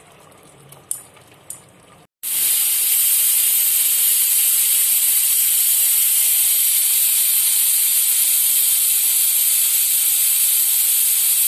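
Pressure cooker whistle going off: a loud, steady hiss of steam venting from the lid, starting abruptly about two seconds in after a couple of faint clicks. A whistle like this marks that the cooker is at full pressure; here one whistle is enough to cook the kofta.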